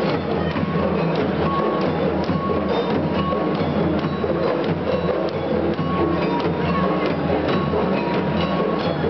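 Live traditional percussion music from hand-held frame drums, a steady run of sharp strokes with short ringing notes above.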